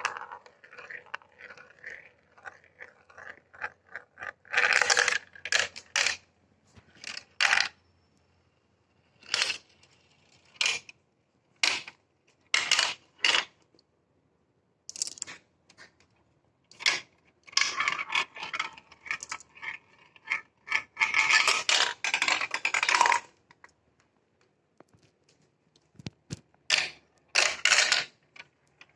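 Glass marbles rolling and clattering down plastic marble-run track: many short clacks and rattles, with denser runs of rattling about five seconds in and again around eighteen to twenty-three seconds. A faint steady motor hum from the chain-lift elevator lasts through the first several seconds.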